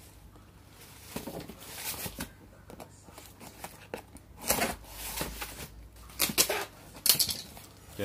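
An electric kettle's box being opened and its packaging handled: irregular rustling and scraping with a few sharp knocks, the loudest about halfway through and twice near the end.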